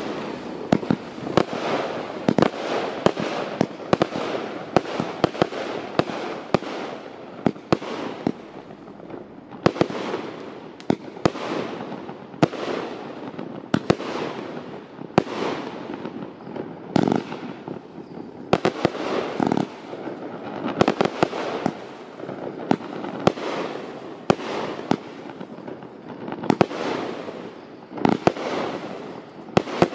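A 45-shot consumer firework cake (Vivid Pyrotechnics' The Phoenix, 25 and 30 mm tubes) firing in sequence: a steady run of sharp bangs, roughly one or two a second, over a continuous noisy wash between them.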